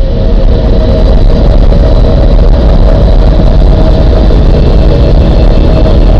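A loud, steady deep rumble with a few faint steady tones above it, presented as a scientific recording of the Earth's hum.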